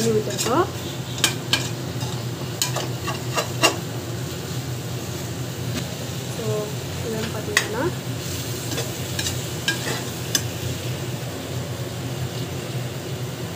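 A perforated steel ladle stirring and scraping sliced mushrooms and onions frying in oil in a metal pot: a steady sizzle with scattered sharp clinks of the ladle against the pot, more of them in the first few seconds.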